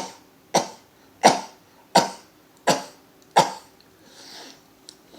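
A man sneezing six times in quick succession, about one sneeze every 0.7 seconds, each sudden and short: part of a sneezing fit of about ten sneezes in a row.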